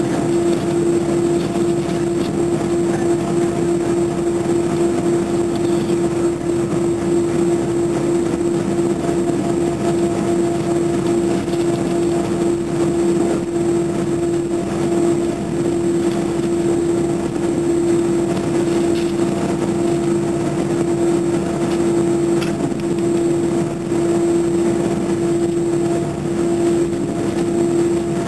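Airliner cabin noise while taxiing: a steady rushing hum from the jet engines at low thrust and the cabin air, with one constant droning tone running through it.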